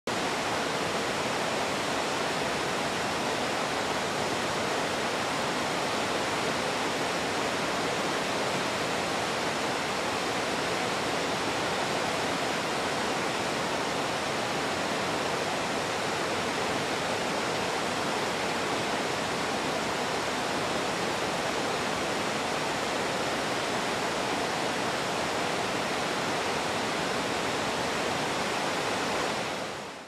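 Middle McCloud Falls, a wide waterfall pouring over a rock ledge into its pool: a steady rush of falling water, fading out at the very end.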